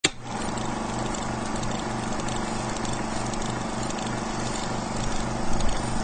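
Film projector running: a steady mechanical whir with hiss and a low, pulsing hum. It cuts in abruptly with a click and swells slightly near the end.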